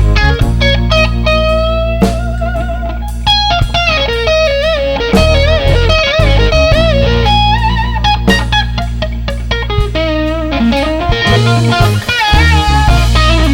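Live blues-rock band playing an instrumental break: a lead electric guitar plays bent notes with wide vibrato over bass guitar and drums.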